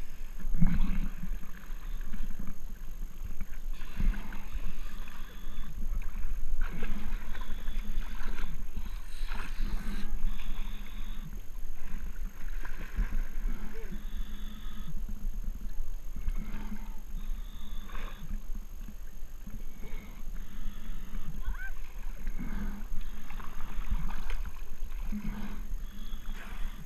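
Lake water sloshing and splashing against a camera held at the surface by a swimmer, in uneven surges every second or two.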